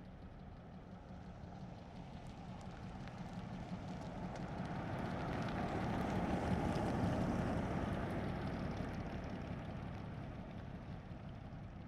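1937 Plymouth's flathead six-cylinder engine driving past at medium speed, heard from outside: it builds up, is loudest about seven seconds in, and fades away.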